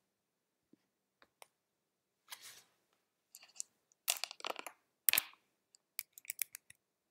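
Scattered small clicks and a few short rustling, scraping noises, ending in a quick run of clicks.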